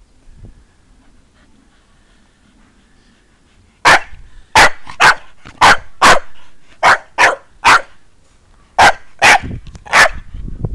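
Irish Staffordshire bull terrier barking in play: about eleven barks in three quick runs, beginning about four seconds in.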